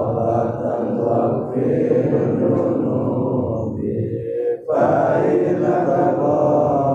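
A group of men chanting a dhikr recitation in unison, a continuous drone of many voices. There is a brief pause for breath about four and a half seconds in, and then the chant carries on.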